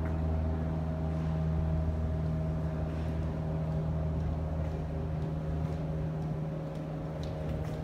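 Steady low machine hum, like an idling engine or motor, holding a few constant tones without change.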